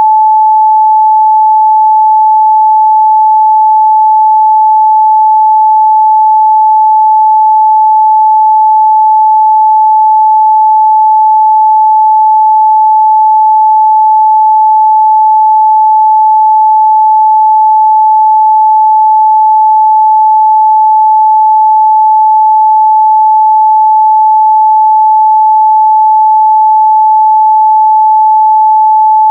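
Pure 867 Hz sine-wave test tone, one steady unbroken pitch at constant loudness, with no harmonics or other sound.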